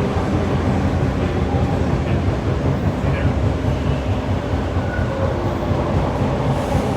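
TTC T1 subway car running with a steady low rumble and hum, stopped at a station platform.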